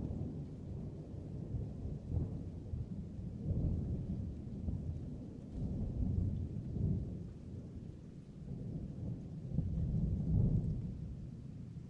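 Thunder rumbling continuously, a deep roll that swells and fades several times, loudest near the end.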